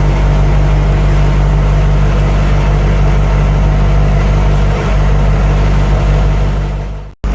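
Humvee's diesel V8 idling steadily, heard from inside the cabin; the sound cuts off abruptly near the end.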